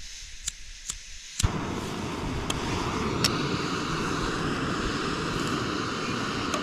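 Small backpacking gas canister stove: a few light clicks, then a sharper click as the burner lights about a second and a half in, followed by the burner's steady rushing hiss.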